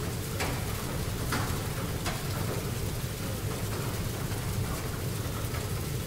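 Library room ambience: a steady low hum under an even hiss, with a few faint clicks or ticks scattered through it.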